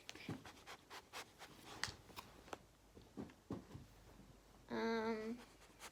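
Light rustling and clicking of packaged snacks and a drink being handled, with a short hummed vocal sound, steady in pitch, about five seconds in.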